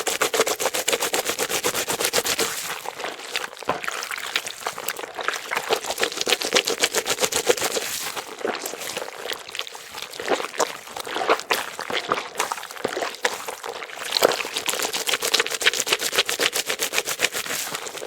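Water running from a bathroom sink faucet and splashing into the basin: a dense, fast crackle of splashes that eases off and picks up again several times.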